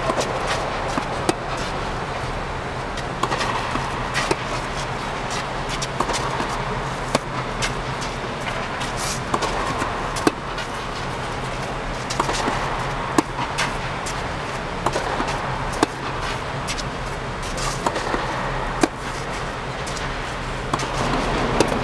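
Tennis rally: sharp pops of the ball struck by rackets and bouncing on a hard court, about one a second, irregularly spaced, over a steady background hum.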